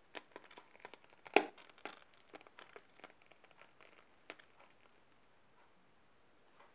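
Piping bag crinkling and crackling as whipped cream is squeezed through its nozzle, in many small clicks with one sharper click about a second and a half in; the crackling thins out over the second half.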